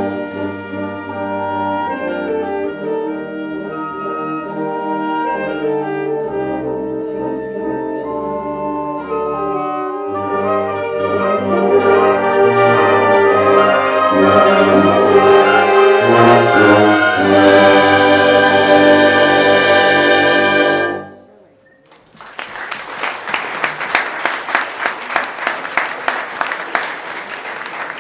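Concert band of woodwinds and brass playing the closing bars of a piece, growing louder to a held final chord that cuts off about 21 seconds in. After a moment of silence, the audience applauds.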